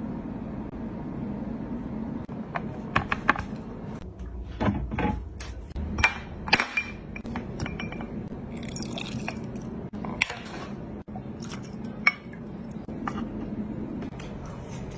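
Scattered sharp clinks and taps of metal tongs and glass on a slate serving board, with a stretch of liquid pouring from a glass bottle in the middle.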